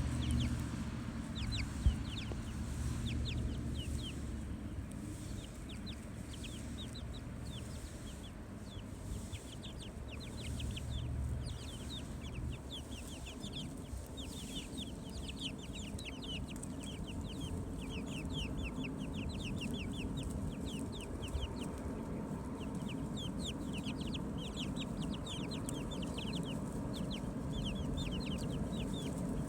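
Chickens clucking and chirping, with a dense stream of short high chirps throughout. A low rumble underneath is strongest in roughly the first dozen seconds, and a single sharp knock comes about two seconds in.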